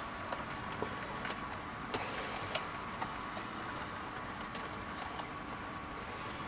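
Model trains running on the track: a steady whirr with a faint whine, broken by light, irregular clicks of wheels over rail joints.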